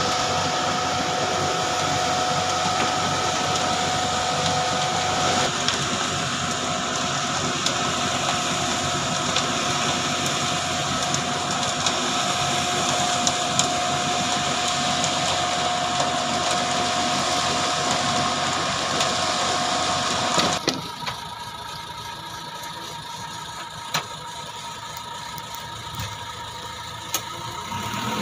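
Concrete mixer truck running steadily as it discharges concrete down its chute, with a couple of held whining tones over the engine. About 21 seconds in the sound drops suddenly and carries on much quieter, with a few sharp knocks near the end.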